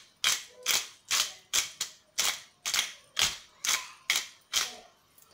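Handheld pepper mill being twisted, grinding peppercorns in a regular run of short crunching turns, about two a second.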